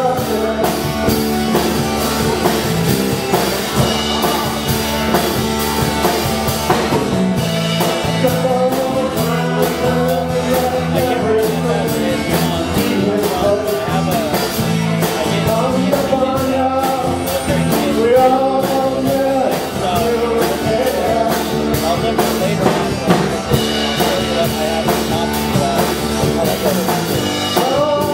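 Live band playing an up-tempo song with a steady drum beat: a man singing over strummed acoustic guitar, with electric guitar and drums.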